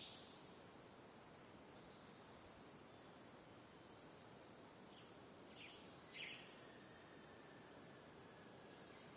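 Faint nature ambience: a bird's rapid high trill, about ten notes a second, heard twice for about two seconds each, with a few short chirps between, over a soft steady hiss.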